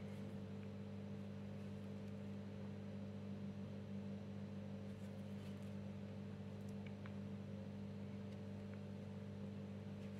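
Steady low electrical hum with a few faint, soft clicks.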